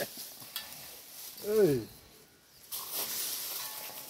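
Domestic goat bleating once, a short call that rises and falls about a second and a half in, followed by a soft hissing noise near the end.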